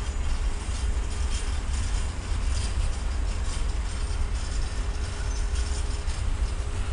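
Freight train of container-laden flat wagons rolling past: a steady low rumble of wheels on rail with irregular clicks and knocks from the wagons.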